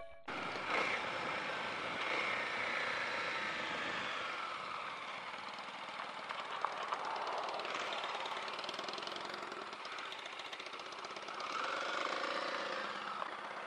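Motorcycle engines running at low speed: a Kawasaki KLR250 single-cylinder trail bike rides slowly up and stops alongside, a little louder near the end as it arrives.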